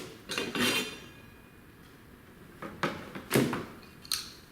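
A few short knocks and rustles of softbox parts and packaging being handled: one about half a second in, two close together about three seconds in, and one near the end, with quiet room tone between.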